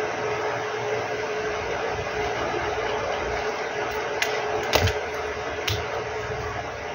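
Steady blowing hiss of a fan on an electronics repair bench, with a faint steady hum in it. A few sharp light clicks of tools on the board come about four to six seconds in.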